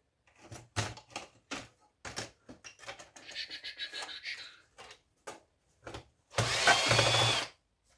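Power drill-driver run briefly on the screws of old electrical equipment, the longest run lasting about a second near the end, amid clicks and knocks of handling. The screws are hard to reach with a normal-length bit.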